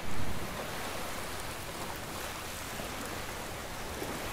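Steady hissing sizzle of marinated chicken cooking on a wire grill over a charcoal fire, briefly louder at the very start.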